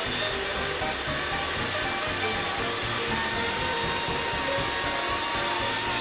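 Wood-Mizer LT40HD band sawmill running steadily, its band blade sawing through a log as the sawhead travels along it.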